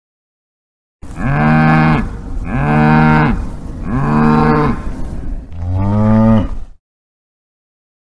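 A cow mooing four times in quick succession, each moo rising and then falling in pitch. The fourth moo is lower and deeper than the first three and cuts off sharply.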